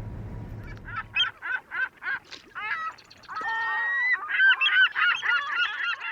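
A flock of geese honking: a quick run of single honks, about three a second, then many birds calling over one another from about halfway. A low steady rumble stops about a second in.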